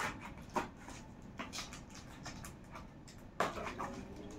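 A pen tip scraping and poking at the packing tape of a small cardboard box to slit it open, a series of short scratches and ticks, the loudest about three and a half seconds in.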